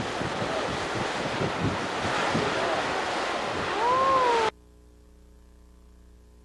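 Ocean surf with wind buffeting the microphone. Just before the end, a short call rises then falls in pitch. The sound then cuts off suddenly to a faint steady hum.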